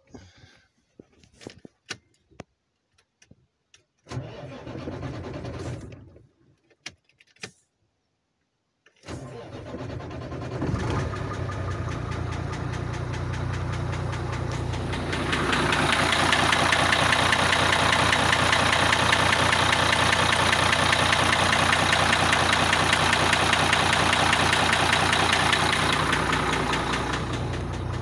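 Cummins M11 inline-six diesel in an International truck cranks briefly, then about nine seconds in cranks and starts, and idles. From about fifteen seconds it runs louder at raised revs, dropping back near the end. Through its running comes a rhythmic knock, which the mechanic suspects is a connecting rod, since unplugging cylinder five's injector makes it slightly quieter.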